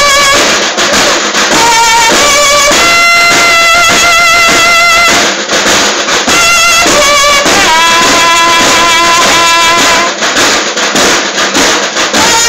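Mexican banda de guerra (drum and bugle corps) playing a hymn: bugles sound long held notes with a wavering pitch, changing every second or two, over snare drums.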